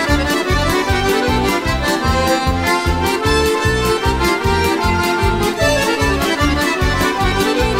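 Slovak folk band playing an instrumental break between sung verses: a melody line over a steady bass beat of about two and a half pulses a second.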